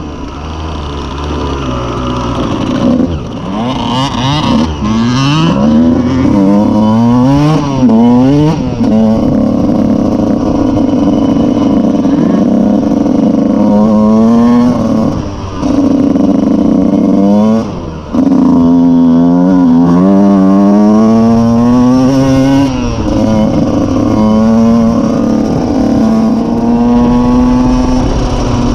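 Honda CR125 two-stroke dirt bike engine heard from the rider's seat, revving hard and shifting through the gears. The pitch climbs and drops in quick surges over the first several seconds, then holds at a steadier high pitch with brief throttle cuts about halfway through and again a few seconds later.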